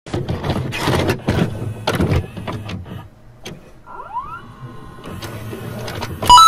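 VCR tape-loading sound effect: mechanical clunks and clicks with a motor whir, then a short rising whine. A loud steady electronic beep starts near the end.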